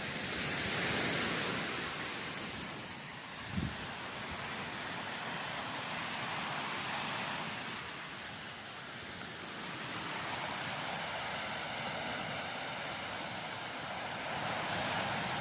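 Sea waves rushing onto the shore, swelling and easing every few seconds. A short low thump sounds about three and a half seconds in.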